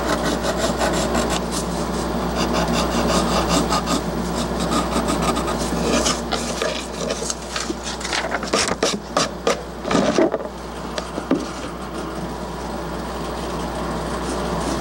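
Rapid back-and-forth rubbing and scraping strokes against plywood, many a second, turning slower and irregular about halfway through, over a steady low hum.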